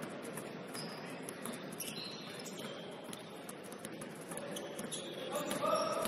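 Basketball shoes squeaking on a gym court: several short high squeaks over the steady hubbub of a game in a large hall.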